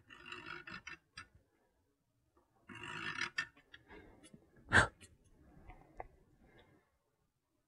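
Carbide-tipped scratch awl scraping a scribed line into the painted steel of an electrical enclosure, in two short scratchy strokes. About five seconds in comes one sharp knock, the loudest sound, then a lighter tap.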